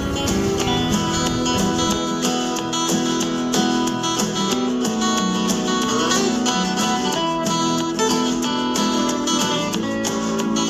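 Background music led by acoustic guitar, fast picked notes over held chords. It cuts off suddenly at the end.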